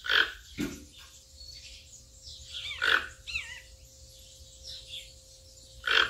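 Toucan calling: four short, harsh croaking calls, two close together near the start, one about three seconds in and one near the end. A small bird gives a brief warbling chirp just after the middle call.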